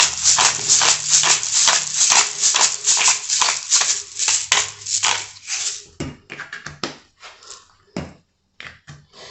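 Pepper being dispensed over a bowl of salad ingredients: quick, even rasping bursts, about four a second, for roughly six seconds, then a few scattered clicks and knocks.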